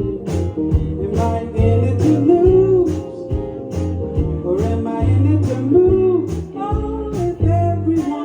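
Live band performing a song, with a lead singer over a steady beat and bass line.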